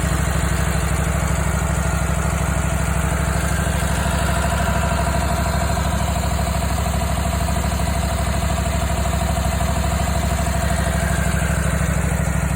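Brand-new Kohler Command Pro ECV749 EFI V-twin engine idling steadily on its first run.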